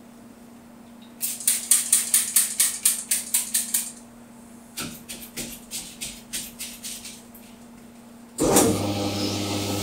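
Two runs of quick clicks, about five a second, as the bowling ball spinner is worked by hand; near the end the spinner's electric motor starts and runs with a steady hum as it spins the ball.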